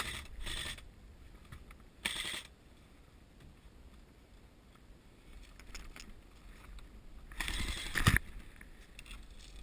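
Knit mittens and clothing rubbing against the camera in three short bursts of rustling: one at the start, a brief one about two seconds in, and the loudest near the end. In between it is fairly quiet with a few faint ticks.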